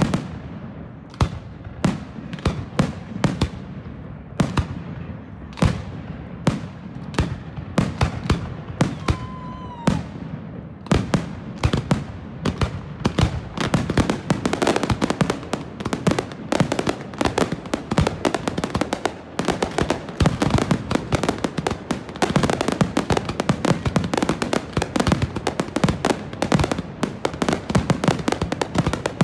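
Aerial fireworks shells bursting overhead. Single booms come about once a second at first, then from about eleven seconds in a dense barrage of many reports a second.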